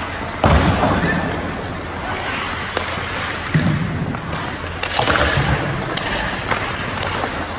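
Ice hockey play: a steady scrape and hiss of skates on ice, broken by sharp knocks of puck, sticks or boards. The loudest knock comes about half a second in, with smaller ones near the middle and later on.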